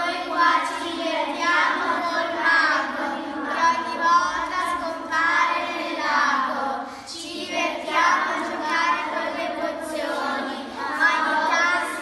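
A group of children singing their team motto together in unison, with a brief break about seven seconds in.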